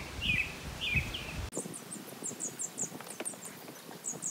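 Small birds chirping, with a low rumble under the calls for the first second and a half. After an abrupt drop in the background, a run of high, thin chirps goes on with scattered light clicks.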